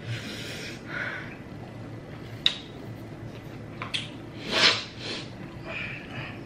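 Sniffing and hard breathing through the mouth from someone whose mouth is burning after spicy noodles, with a few small clicks. A louder sharp breath comes about two thirds of the way in.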